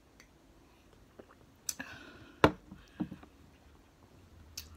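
A glass bottle lowered from the lips and set down on a table: a few sharp clicks and knocks, the loudest about two and a half seconds in, one with a brief glassy ring.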